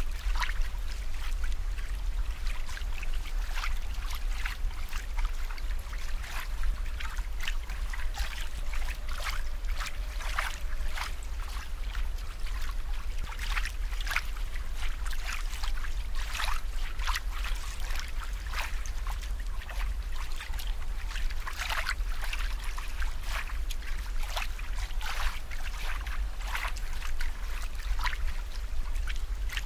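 Water trickling and bubbling, with many irregular small plops and drips over a steady low rumble.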